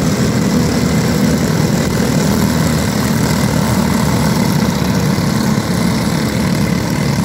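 A field of Briggs & Stratton LO206 four-stroke kart engines running together at a race start. They form a steady, dense drone in which no single engine stands out.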